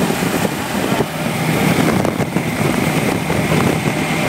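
Steady vehicle noise of engine and tyres on the road, with a faint steady hum underneath that grows a little stronger near the end.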